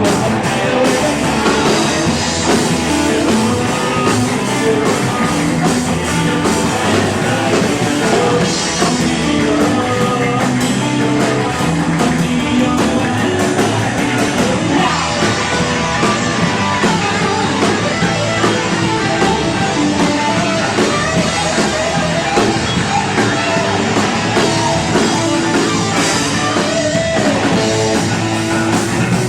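A rock band playing live: electric guitars, bass and drum kit, with singing.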